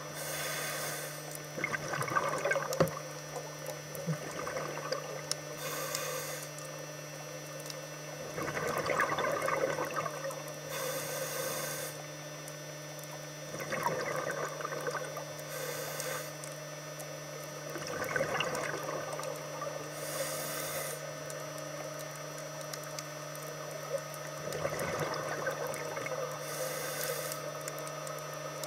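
Scuba diver breathing through a regulator underwater: a short hissing inhale about every five seconds, each followed by a gurgling rush of exhaled bubbles, over a steady low hum.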